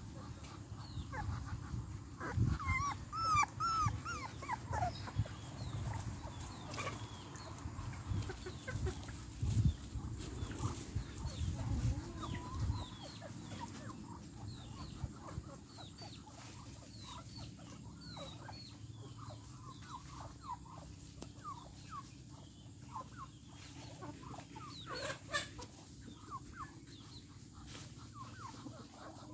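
Puppy whining in high cries that rise and fall, strongest a couple of seconds in, over a low rumble. This gives way to a long run of short high peeps and chirps from chicks and poultry feeding, with a louder cry near the end.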